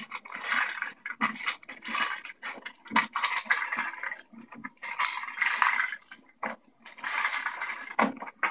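Pill bottles and medicine boxes being handled on a counter: irregular rattling and scraping in quick bursts, heard through a television's speaker.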